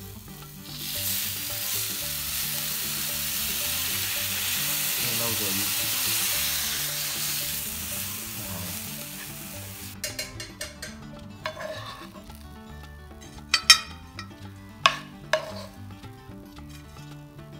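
Dark sauce hits a hot pan of deep-fried prawns and crispy crumbs and sizzles loudly for about nine seconds as chopsticks stir. The sizzle cuts off abruptly. A metal spoon then clinks and scrapes against the pan and plate, with a few sharp knocks near the end.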